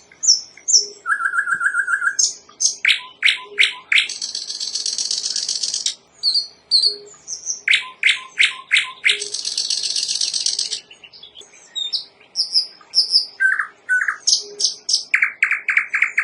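Common nightingale singing. Its varied phrases alternate fast high buzzy trills, runs of four or five quick repeated notes and a short steady whistled note, with brief pauses between them.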